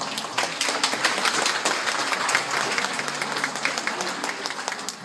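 Congregation applauding: dense clapping that starts suddenly, is loudest in the first couple of seconds and thins out toward the end.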